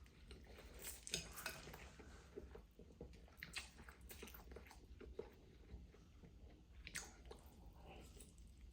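Faint chewing of spicy instant noodles, with scattered soft smacks and clicks, the clearest about a second in, midway and near the end.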